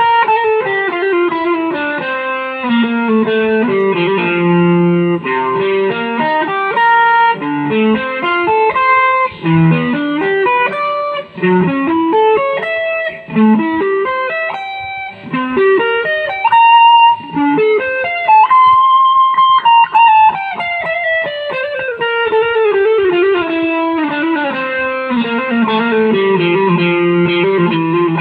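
Instrumental music: a plucked, guitar-like string instrument, amplified, plays a melody of quick single notes with long sliding glides in pitch. A slow slide up about two-thirds of the way through is followed by a long descending run.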